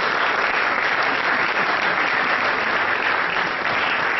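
Audience applause: many people clapping steadily at the end of a lecture.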